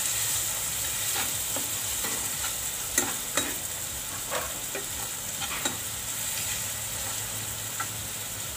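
Chopped onions sizzling in hot oil in a nonstick kadhai as they are sautéed, with a metal spatula stirring them in irregular scrapes and taps against the pan; the sharpest tap comes about three seconds in.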